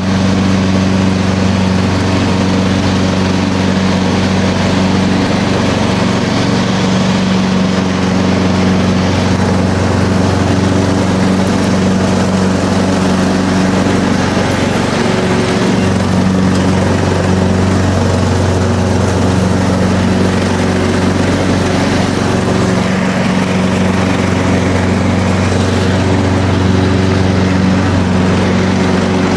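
Lawn mower engine running loudly at a steady speed.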